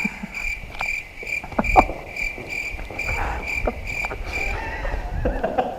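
A high-pitched chirp or beep repeating about two to three times a second, which stops near the end. Scattered sharp clicks and knocks sound over it, one louder knock coming just under two seconds in.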